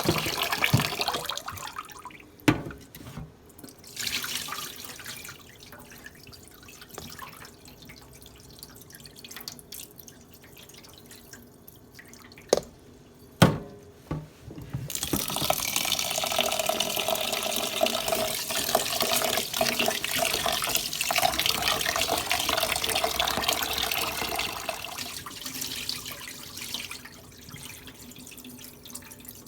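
Kitchen tap water running into a pot as rice is washed in cold water. A few sharp knocks come in the quieter first half, then the tap runs steadily for about ten seconds in the second half before going quiet.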